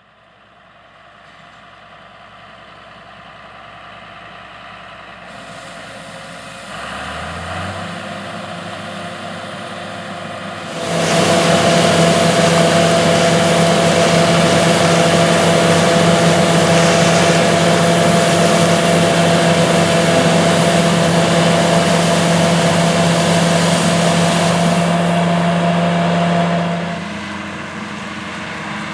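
John Deere 4420 combine's six-cylinder engine and threshing machinery running while harvesting corn. The sound builds gradually, rises in pitch about seven seconds in, and becomes much louder about eleven seconds in, holding a steady whine over a loud rush, then drops away near the end.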